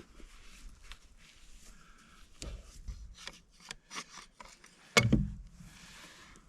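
Handling noises: a run of rubbing and scraping sounds with quick clicks, then one loud knock about five seconds in.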